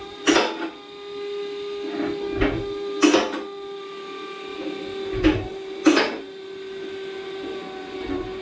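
MaxJax two-post car lift lowering the car: a steady hydraulic hum broken by a few sharp metallic clunks from the lift.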